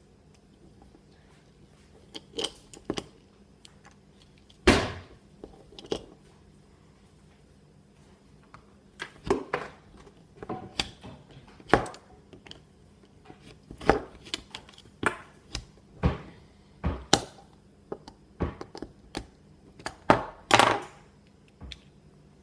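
Irregular sharp clicks and knocks of a hard plastic fidget cube being worked at to pry it open, coming in clusters with short pauses between them.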